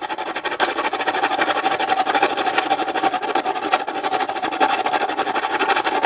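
Small 6-inch flat file rasping rapidly back and forth along the edge of a drilled slot in a metal panel. It makes a continuous, dense scraping with a steady mid-pitched ring running through it, from the final shaping of the slot's flat sides.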